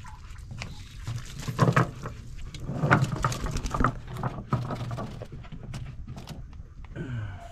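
Irregular knocks and patter as a small bait cast net with a freshly caught mullet is handled on a boat.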